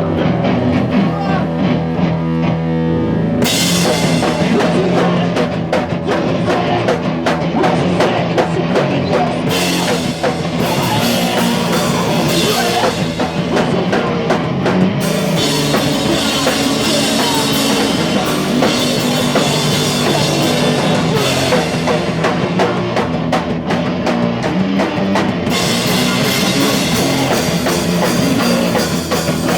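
A rock band playing live: drum kit and electric guitar, loud throughout. The cymbals come in about three and a half seconds in and keep crashing through the rest.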